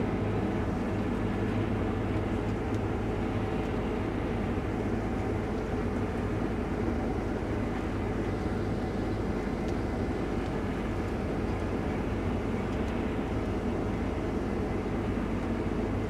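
Combine harvester running steadily: a constant machine drone with a steady low hum, unchanged throughout.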